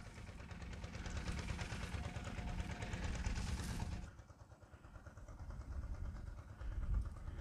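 A faint engine running steadily, which stops abruptly about four seconds in.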